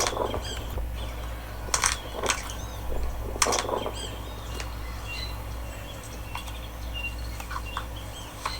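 Nature ambience: small birds chirping in short, scattered calls over a steady low rumble, with a few sharp clicks in the first four seconds.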